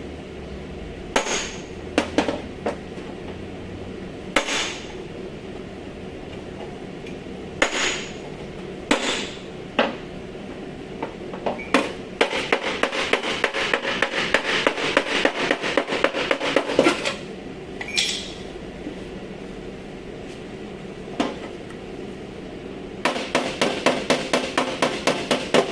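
A hammer striking sheet-metal bodywork, plainly panel-beating to straighten accident damage. It starts with single blows a second or more apart, then goes into quick runs of taps, several a second, about halfway through and again near the end.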